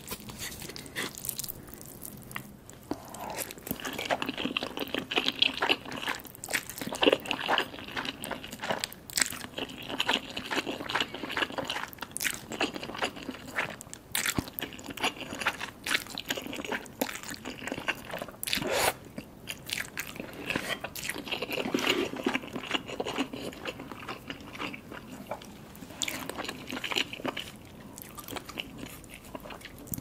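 Close-miked eating sounds of saucy, cheesy Buldak instant noodles with chewy rice cakes: slurping noodles and wet, sticky chewing, with many small mouth clicks.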